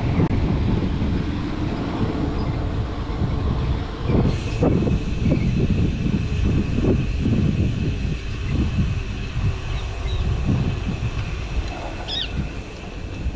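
Wind rumbling on the microphone and road noise while riding a bicycle along a road: a low rumble that swells and dips irregularly, with a faint steady high tone joining about four seconds in.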